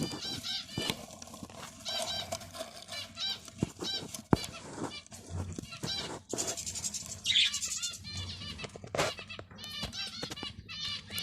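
Zebra finches calling: rapid series of short, high, arched chirps throughout, with a few sharp clicks and a brief rustle a little past the middle.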